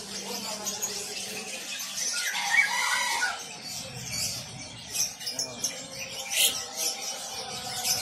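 Many caged canaries and other small songbirds chirping and singing together in a dense chorus, with a louder squealing call about two to three seconds in.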